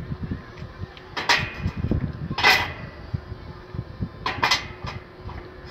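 Lengths of square steel tube clanking against each other and against a steel frame as they are handled and set in place: a few sharp metallic knocks with a short ring, the loudest about two and a half seconds in.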